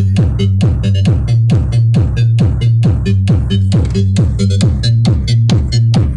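Bass-heavy electronic dance music played loud through speaker boxes in a sound check, with a fast, even beat and a strong, steady bass line.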